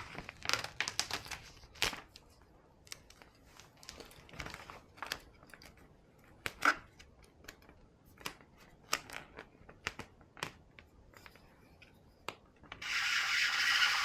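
Sticky vinyl decal and its backing paper being peeled and handled, with scattered crinkling and crackling and sharp little tearing clicks. A steady hiss starts near the end.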